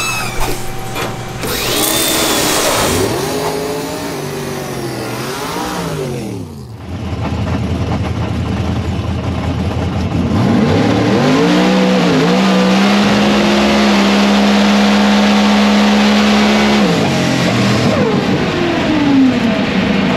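Supercharged race car engine revving in short rising-and-falling bursts. About ten seconds in it goes to a hard full-throttle run: the pitch bobs up and down a few times on the traction control, holds steady, then falls away as it lifts off near the end.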